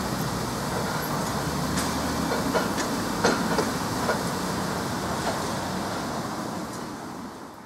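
Beyer Peacock 0-6-0 tank steam locomotive standing with steam hissing from low down by its wheels, with a few sharp metallic clinks at uneven intervals.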